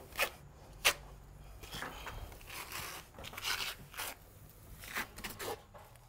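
Steel hand trowel sweeping back and forth over a wet concrete overlay, a series of irregular scraping swishes, with one sharp click just under a second in.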